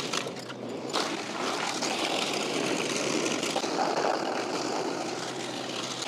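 Woodmaxx MX8600 PTO wood chipper chewing up a bushy green limb, a dense grinding rush that starts about a second in and holds steady, over the tractor's engine running.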